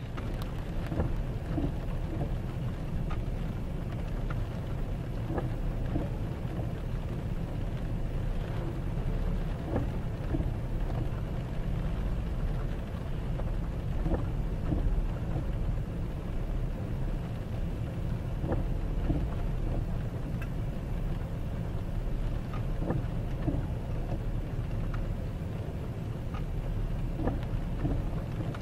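Freight train cars rolling past, a steady low rumble of wheels on rail heard from inside a vehicle, with scattered light ticks of rain on the vehicle.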